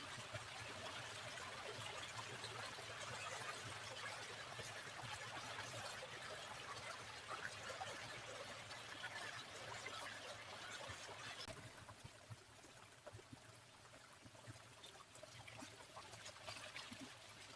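Small stream of running water trickling steadily, dropping quieter and duller about two-thirds of the way through before picking up again near the end.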